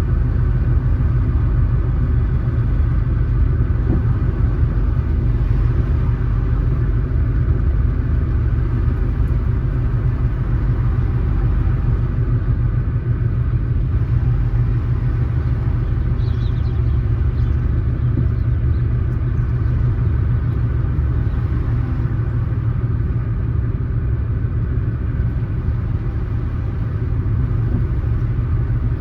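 A car driving steadily, with a constant low rumble of road and engine noise.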